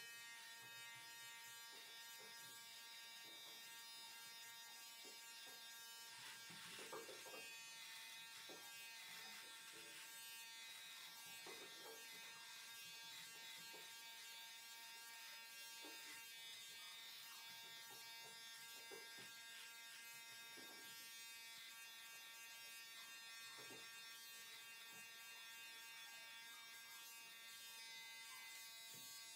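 Philips Series 5000 (BT5200) beard trimmer running, a faint steady electric buzz as it cuts through beard hair.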